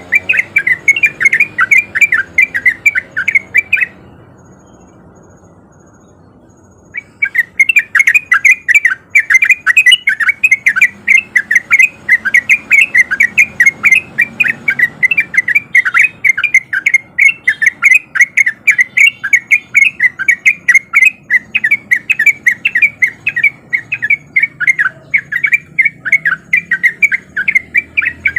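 A male yellow-vented bulbul singing a rapid, non-stop run of short chattering notes, about four or five a second. The song breaks off about four seconds in and starts again some three seconds later.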